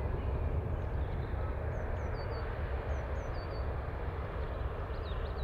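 Twin-engine Boeing 777-240ER jetliner climbing away after takeoff, its engines a steady, distant low rumble. A small bird chirps a few times over it.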